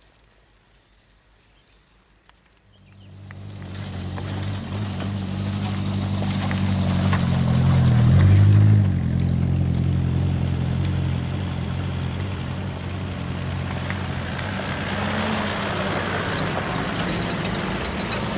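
A motor vehicle's engine comes in out of quiet about three seconds in, grows louder and passes close around the middle with a drop in pitch, then carries on as a steady engine hum. Light clicks sound near the end.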